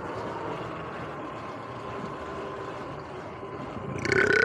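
Sur-Ron X electric dirt bike's motor and chain drive whining steadily at riding speed, with tyre and wind noise. Near the end a brief, much louder sound rises in pitch.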